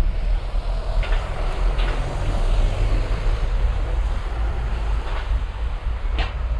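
Low steady rumble of a train in an underground station, with a few brief clicks.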